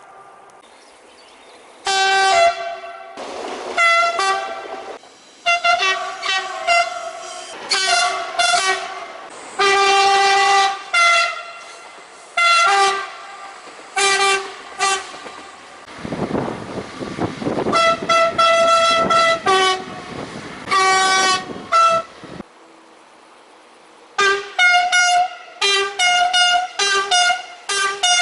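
French train's two-tone horn played in quick rhythmic blasts, switching between a low and a high note to make a tune, starting about two seconds in. Midway a loud rushing noise runs under the horn for several seconds.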